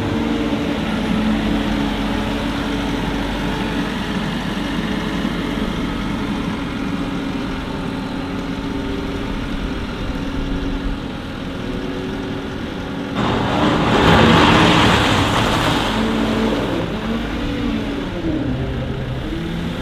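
Heavy diesel farm machinery engine running steadily. About two-thirds of the way through it swells into a louder rush of noise, then its pitch rises and falls as it revs up and down.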